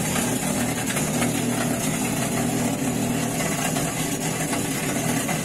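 Frigidaire front-load washing machine running its final spin cycle, a steady mechanical hum, while the water does not drain: the drain pump has failed.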